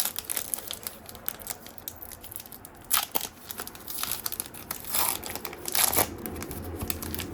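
A trading-card pack's foil wrapper being torn open and crinkled by hand, in irregular rustles with the sharpest crackles about three, five and six seconds in.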